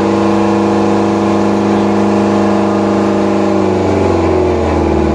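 Mahindra tractor's diesel engine running hard at high revs under load, holding a steady pitch, then easing off with a falling pitch about four seconds in.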